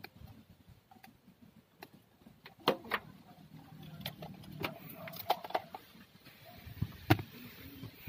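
Scattered small clicks and taps from hands handling loose wiring and tools in a car's footwell, a few louder knocks among them, over a low background murmur.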